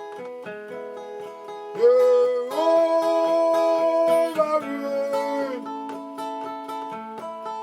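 Gospel worship music led by guitar over a steady beat, with no words sung. A louder held note slides up about two seconds in and fades out after about four and a half seconds.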